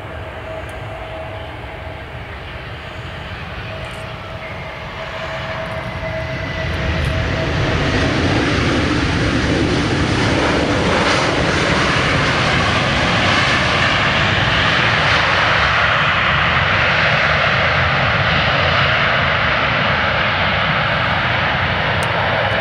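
Southwest Boeing 737 jet landing: a steady engine whine over the engine noise as it comes in on approach, growing louder, then from about eight seconds in a loud, steady roar that is typical of reverse thrust on the landing roll.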